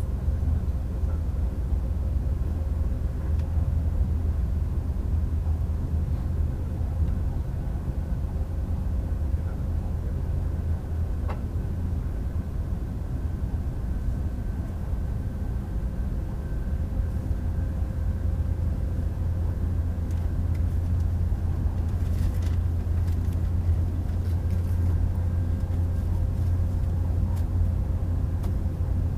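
Steady low rumble of an AVE Series 103 high-speed train running at speed, heard inside the passenger cabin, with a faint steady hum over it. A few faint clicks come late on.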